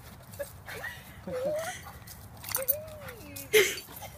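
Dog whining and whimpering in excitement as it greets its returning owner: thin, high cries that rise and fall, with short yips between them and a louder cry near the end.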